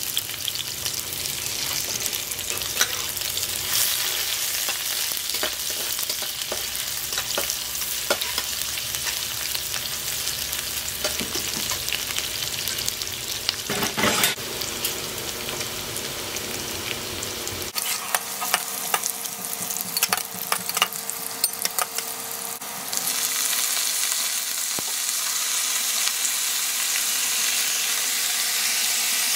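Sliced onions and green chillies frying in oil in a wok: a steady sizzle with scattered pops and crackles. Near the end the sizzle turns louder and smoother, with brinjal strips now frying in the pan.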